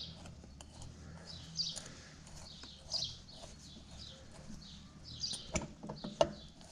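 Faint high bird chirps every second or two, over scattered light metallic clicks of a wrench turning a flywheel puller on a Vespa PK 50's magneto, with a cluster of clicks near the end.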